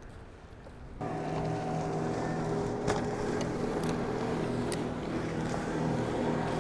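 Motorboat engine running steadily as the boat passes, starting abruptly about a second in. A few light clicks sound over it.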